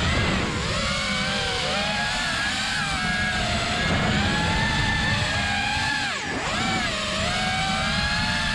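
Supermoto motorcycle engine revving up and down while riding on snow, its pitch rising and falling through turns, with the revs dropping sharply and climbing back about six seconds in.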